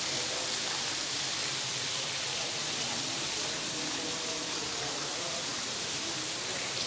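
Steady, even hiss with no breaks or events, plus faint murmuring in the background.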